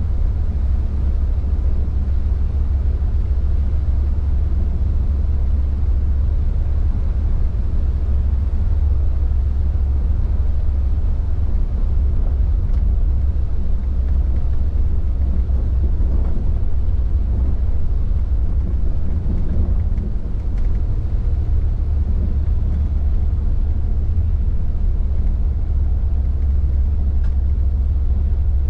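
Steady low rumble inside an intercity coach cruising along a highway in heavy rain: engine and road drone with wet-tyre and rain noise.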